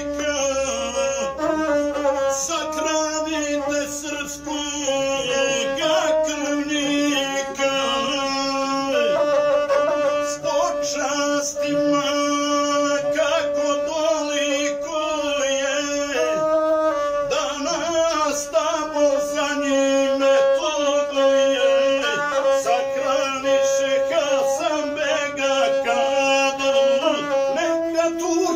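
Gusle, the single-string bowed folk fiddle, played by a guslar who sings along with it. The bowed string and the voice go on without a break.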